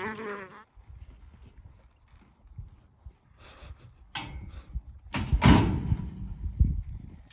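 A horse's hoofbeats with scattered knocks and thuds, loudest in a burst of heavy thumps about five seconds in, after a brief wavering call at the very start.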